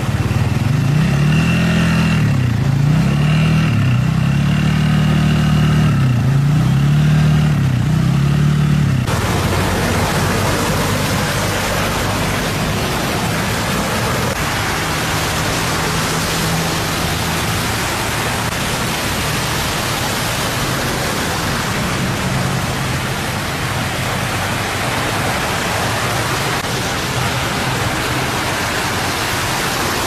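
Traffic driving through a flooded street: a vehicle engine whose pitch rises and falls over and over for about the first nine seconds, then an abrupt change to a steady rushing noise with faint engine hum underneath.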